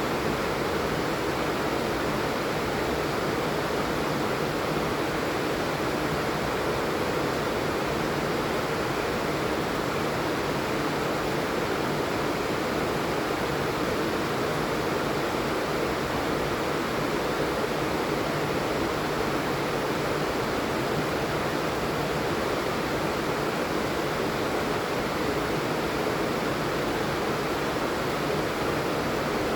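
Steady heavy rain falling, an even unbroken hiss with no distinct drops or gaps.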